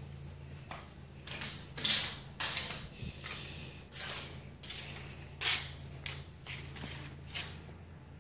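Irregular rustling and scuffing handling noises, about a dozen short bursts, over a faint steady low hum.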